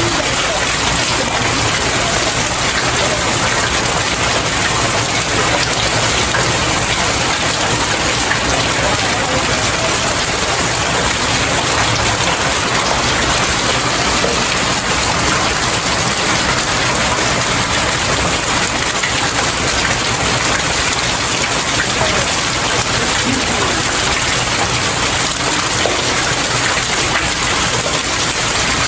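Steady rain falling on stairs: a dense, even patter that holds at the same level throughout.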